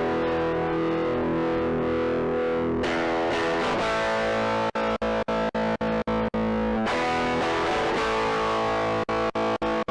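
Fender Stratocaster through overdrive playing sustained distorted chords. A momentary tremolo pedal chops the sound on and off in hard cuts twice, at about four cuts a second, once near the middle and again near the end.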